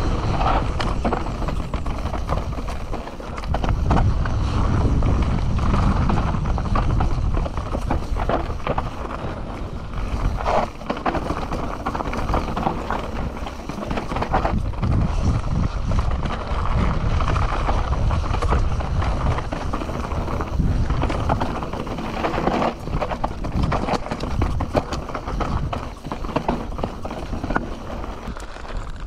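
Canyon Torque CF 9 full-suspension mountain bike descending a dirt trail, heard from a handlebar-mounted action camera: a continuous rumble of tyres on dirt with frequent uneven rattling and clattering knocks from chain, frame and suspension over bumps.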